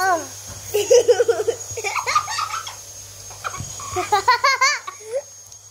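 A boy laughing in several bursts, the longest about four seconds in, a quick run of high-pitched giggles.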